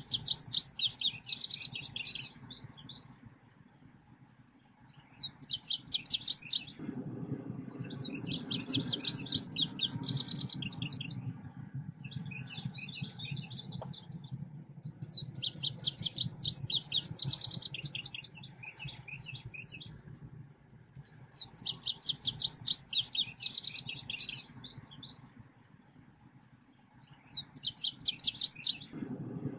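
Selendang biru bird song played as a lure recording: repeated phrases of rapid, high-pitched chirps, each lasting a few seconds, with short pauses between them. A faint low rumble sits underneath about a quarter of the way in and again at the end.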